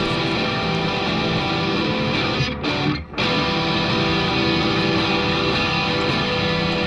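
Background music: a rock track with distorted electric guitar, briefly dropping out about three seconds in.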